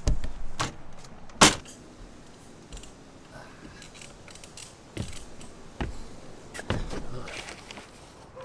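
A series of sharp knocks and clunks, the loudest about one and a half seconds in, as padded board bags and their straps are handled on a truck camper's roof rack.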